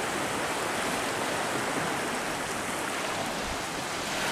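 Small surf waves washing up and draining back over a sandy beach, a steady hiss of water.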